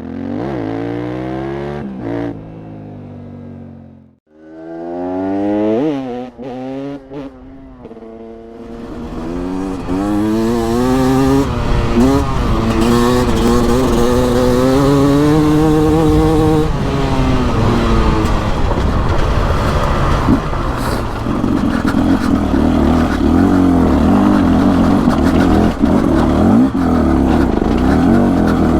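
Beta RR 300 single-cylinder two-stroke enduro engine blipped in short revs. About four seconds in the sound briefly cuts away. It then accelerates in several rising surges and settles into running steadily under load.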